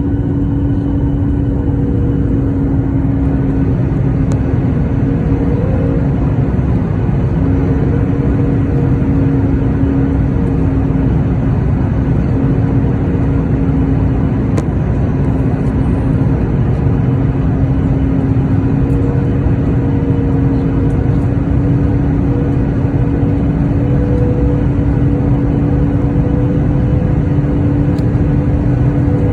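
Cabin noise inside a Boeing 737-8 airliner: a steady rumble from the engines and the air rushing past, with a constant low hum running through it.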